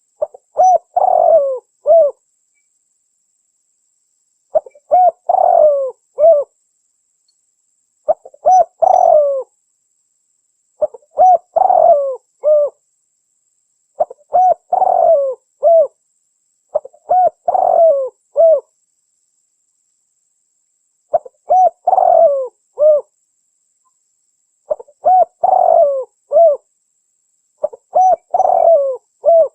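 Spotted dove (terkukur) cooing: the same phrase of several mellow coos, about two seconds long, repeated nine times at intervals of three to four seconds.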